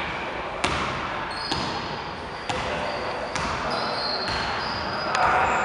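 Basketball dribbled on a gym floor, about one bounce a second, with short high squeaks of sneakers on the court and a large hall's echo.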